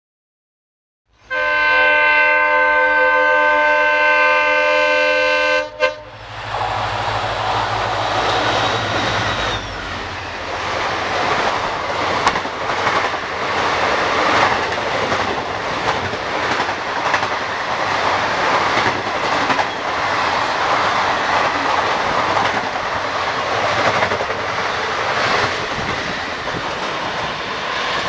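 An Indian Railways WDP4D diesel locomotive sounds its horn, one long chord of several tones held for about four and a half seconds. Then its express train runs through the station at speed, wheels clattering rhythmically over the rail joints as the coaches rush past, with the locomotive's low rumble in the first few seconds.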